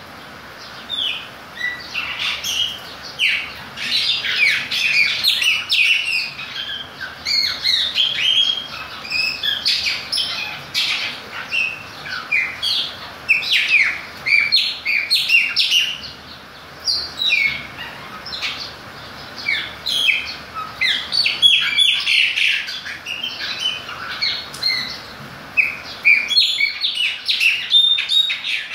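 Chopi blackbird (Gnorimopsar chopi) singing: a long, loud run of varied whistles and chirps broken by a few short pauses, over a steady background hiss.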